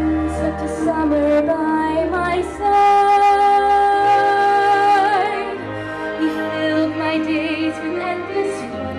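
A woman singing a slow song live through a PA, accompanied on piano. About three seconds in she holds one long note for over two seconds, wavering into vibrato as it ends.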